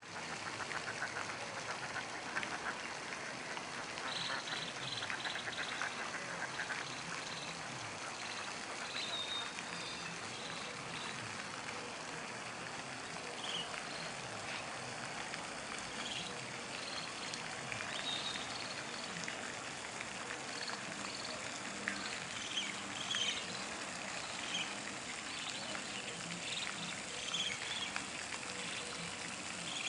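Birds calling around a pond: short, high chirps and calls scattered throughout over a steady hiss of outdoor background noise.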